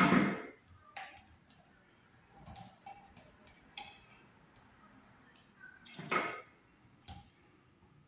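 Pliers and electrical wires being handled at a wall box: scattered small clicks and ticks, with two louder clattering knocks, one at the start and one about six seconds in.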